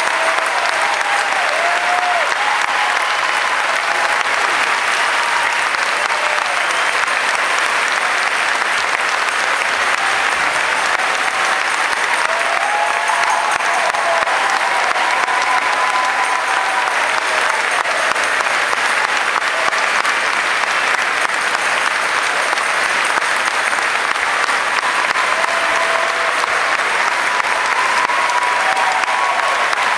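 Large audience applauding steadily without a break, with scattered voices calling out over the clapping.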